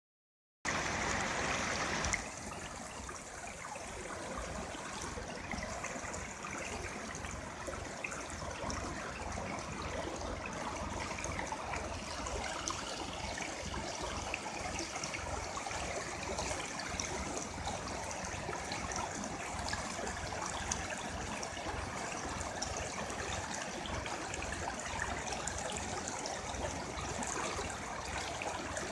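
Shallow rocky river flowing and splashing over boulders, a steady rushing of water. It starts about half a second in and is a little louder for the first couple of seconds.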